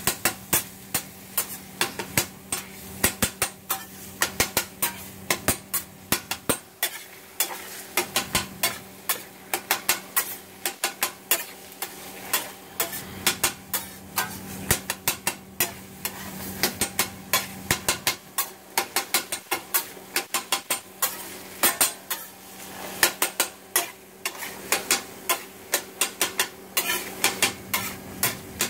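Metal spatula chopping and scraping scrambled eggs and bacon on a steel flat-top griddle: quick, repeated clacks of the blade on the steel, several a second, over the steady sizzle of the eggs frying.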